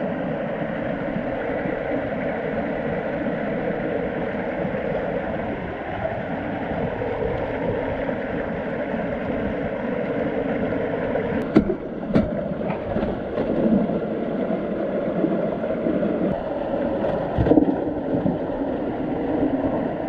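Water rushing steadily through a concrete and steel hatchery inflow channel. A few sharp knocks come about halfway through.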